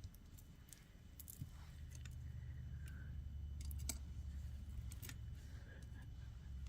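Faint scattered clicks and light taps of small beads and metal jewellery tools being handled, over a low handling rumble.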